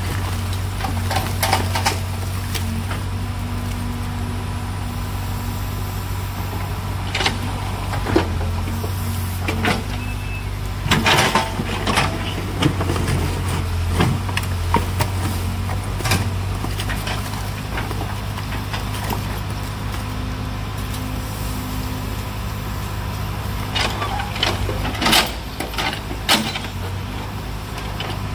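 Backhoe loader's diesel engine running steadily, with scattered knocks and clanks, a cluster of them about eleven seconds in and another near the end.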